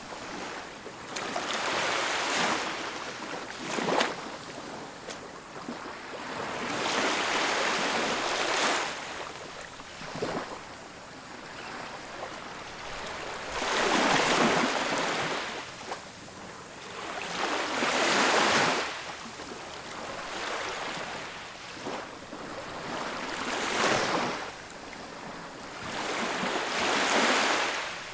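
Ocean waves breaking on a beach, each rushing swell rising and falling away every three to four seconds.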